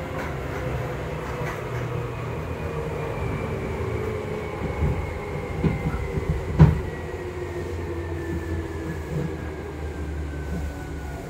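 Seibu 2000 series electric train with field-chopper control, heard from inside the car while slowing into a station: the traction motor and gear whine falls steadily in pitch over a low running rumble. Wheels click over the track, with one sharp knock about six and a half seconds in.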